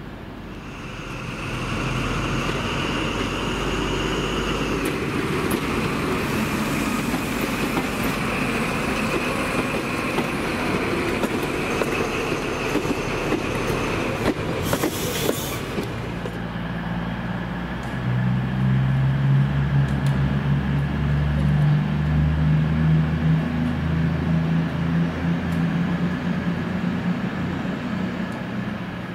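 Diesel trains passing through a station: over the first half a passing train with a steady high whine, then a CrossCountry Voyager diesel multiple unit pulling into the platform, its underfloor diesel engines giving a loud low drone from about 18 seconds in that eases off near the end.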